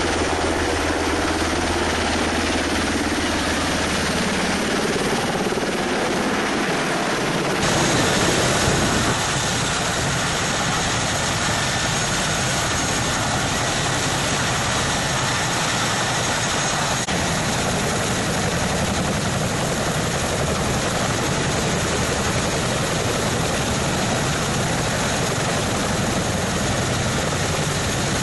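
Military helicopter noise, steady and loud: a UH-60 Black Hawk hovering, then after about eight seconds a sudden change to the running rotors and turbine engines of a CH-47 Chinook on the ground.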